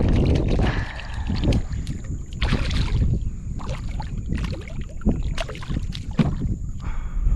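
Wind rumbling on the microphone, with scattered knocks and clicks from handling gear on a kayak.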